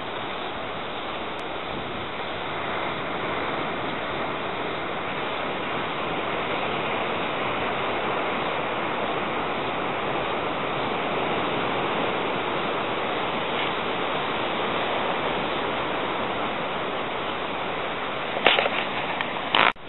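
Surf breaking on a sand beach, a steady rush of noise, with two sudden loud knocks near the end.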